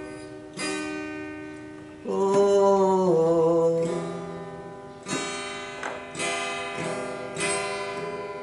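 Acoustic guitar played by hand, slow strummed chords each left to ring, the strokes coming faster, about every half second, over the last few seconds.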